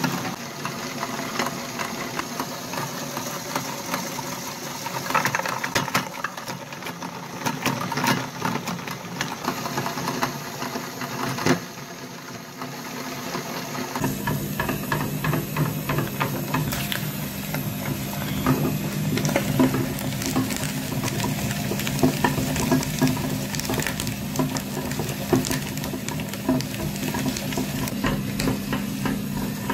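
Meat grinder running, crunching crumbly green balls to powder with dense crackling and clicking. About halfway through, the sound changes abruptly to a steady motor-like hum with clicks over it, while the hard balls are handled and knock together on a glass plate.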